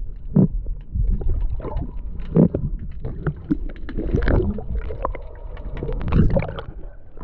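Water sloshing and splashing with irregular knocks and thumps as a caught jack is held in the water and released.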